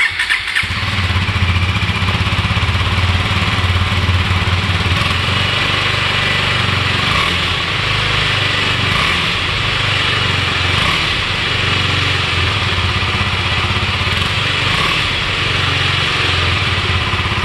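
Husqvarna Svartpilen 250's single-cylinder 249 cc engine running through its stock exhaust, coming on sharply at the start and then holding a steady idle.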